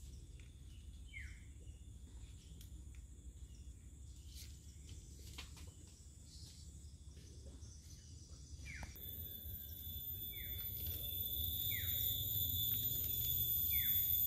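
Forest swamp ambience: short falling chirps repeat about once a second. A steady high-pitched insect drone swells in about nine seconds in and grows louder.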